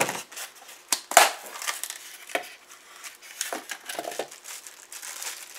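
Packaging around a boxed figurine being handled and pulled apart: irregular crinkling and crunching, with a sharp snap about a second in.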